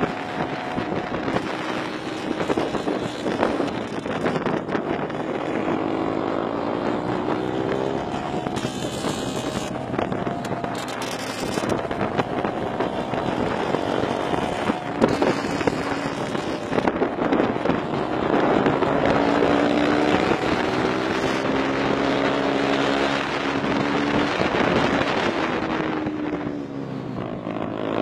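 Honda Super Cub's small four-stroke single-cylinder engine running hard on the road, its pitch rising and falling again and again as the throttle opens and closes through the bends.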